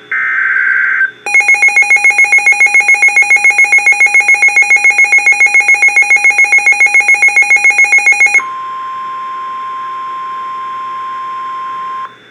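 The tail of a weather radio SAME data burst, a short buzzy digital chirp, then a loud electronic alarm beeping rapidly, several beeps a second, for about seven seconds. It switches to the steady single-pitch NOAA Weather Radio warning alarm tone (1050 Hz) for about four seconds, the signal that a warning message follows.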